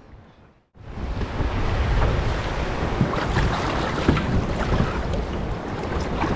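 Wind buffeting the microphone over a choppy sea, with waves washing and splashing. It starts abruptly under a second in, after a brief near-silence.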